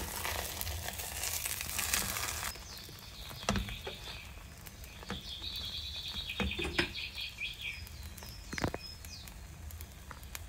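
Eggplant slices in a thin batter sizzling in a hot nonstick frying pan. The sizzle is loud for the first two or three seconds, then drops suddenly to a quieter crackle, with a few sharp knocks.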